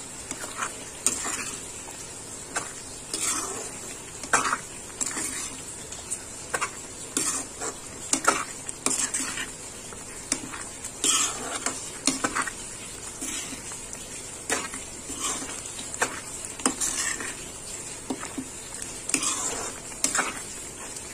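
Steel spatula stirring and scraping thick pav bhaji in a pan in irregular strokes, about one a second, over a steady sizzle from the cooking mixture.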